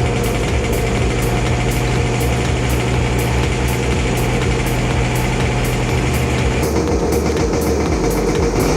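Small two-stroke go-kart engine idling steadily, with a shift in its tone about two-thirds of the way through.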